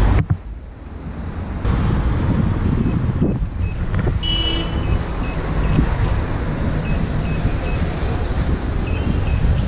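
Wind buffeting the camera microphone, with street traffic under it, as the electric one-wheel rider moves off. The noise drops briefly near the start, then runs on as a steady low rumble.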